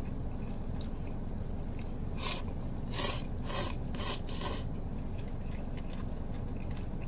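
A man slurping soba noodles from a cup-noodle bowl, about five short slurps between two and four and a half seconds in, over a steady low hum.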